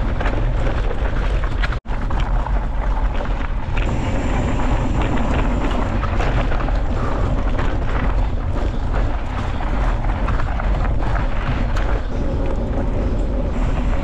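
Wind buffeting a bike-mounted action camera's microphone, with the rumble and rattle of mountain bike tyres on a fast descent. The sound drops out for an instant about two seconds in.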